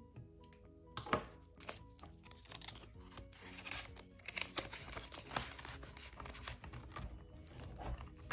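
Paper banknotes rustling and flicking as they are counted and handled by hand, starting about a second in, over soft background music.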